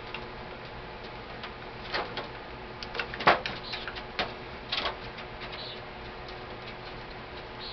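Scattered sharp metal clicks and clinks from tools and AK-47 parts being handled while the stock's screws are worked loose, about half a dozen in all, the loudest a little past three seconds in.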